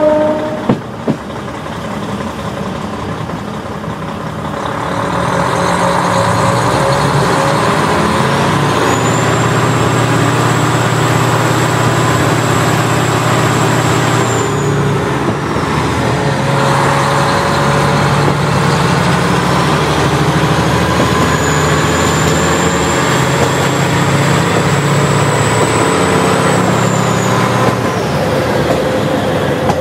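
KiHa 40 diesel railcar's engine running under power, growing louder about five seconds in. A high whine climbs, holds and falls away twice over the engine note.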